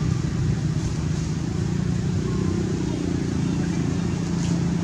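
Steady low rumble, like an engine running, with indistinct voices talking in the background.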